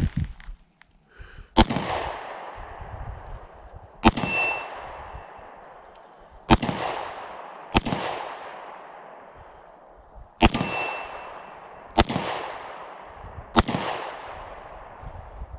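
Seven pistol shots fired at an uneven pace, one to two and a half seconds apart, each trailing off in a long echo. Two of the shots are followed by a brief high metallic ring.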